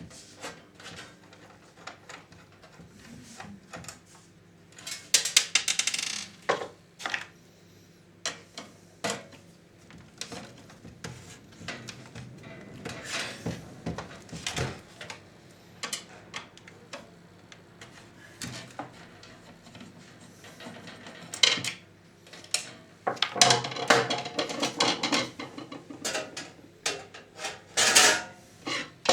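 Irregular clatter of small metal parts, with clinks, knocks and scrapes coming in bunches: a compact VCR's cover and screws being handled and taken off.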